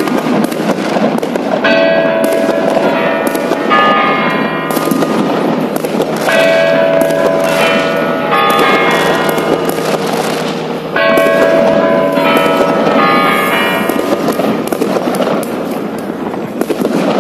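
Bells ringing, a fresh group of chime strokes about every two seconds, over a steady crackle and popping of fireworks.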